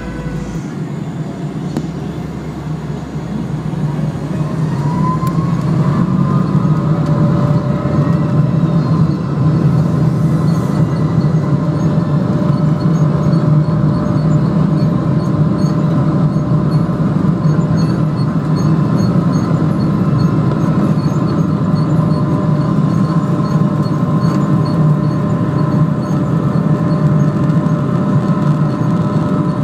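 Boeing 777 turbofan engines spooling up to takeoff power, heard inside the cabin. The rush swells over the first few seconds, a whine rises in pitch about five seconds in, and then it runs steadily with a constant whine over a low rumble through the takeoff roll.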